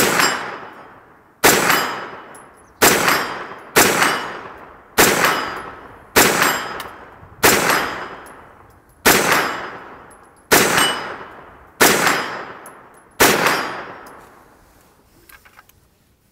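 Faxon Bantam 9mm pistol-caliber carbine firing eleven shots at a steady pace, about one every second and a half, cycling every round. Each shot is followed by a metallic ring that fades over about a second, typical of hits on a steel target.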